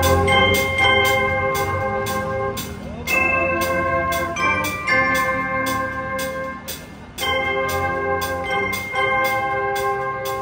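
Marching band playing: brass horns holding full chords that shift every second or two over a steady drum beat.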